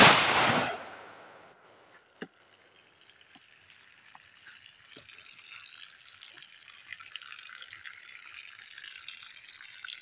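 A single 9mm pistol shot from a Rock Island Armory M1911A1 at the start, dying away within about a second, with a sharp click about two seconds in. Then water runs and trickles out of the bullet-holed plastic jug, growing slowly louder.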